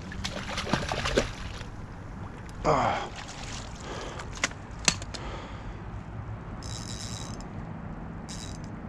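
A hooked fish splashing at the water's surface during the fight, loudest in one short splash about two and a half seconds in, among clicks and knocks from handling the rod and reel. Two short high buzzes come later, over a steady low hum.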